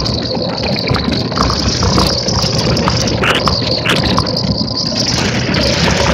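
Electrathon electric race car driving on a wet track: a steady rushing noise of wind and tyre spray, with a few faint clicks.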